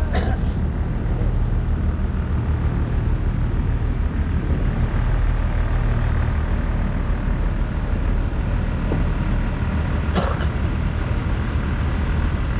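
Boat engine running at a steady drone, with two brief knocks, one just after the start and one about ten seconds in.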